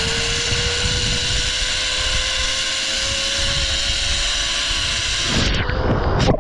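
Zipline trolley pulleys running fast along a steel cable: a steady whine whose pitch rises slowly as the rider picks up speed, over a rush of wind. Near the end the rider drops off and hits the water with a loud splash.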